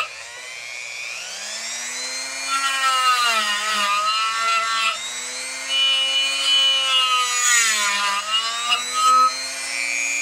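Small corded power tool, such as a rotary tool, spinning up about a second in and then running, used to clean a tarnished electrical connection. Its whine sags twice as it is pressed onto the work and recovers each time.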